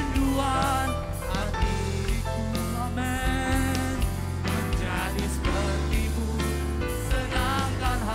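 Christian worship music playing, with melody lines over a held bass.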